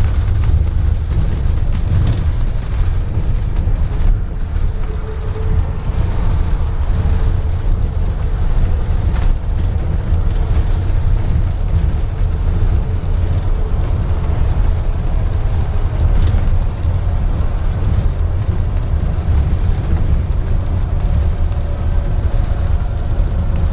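Double-decker bus engine and body rumbling steadily, heard from inside on the top deck, with a faint whine coming in near the end.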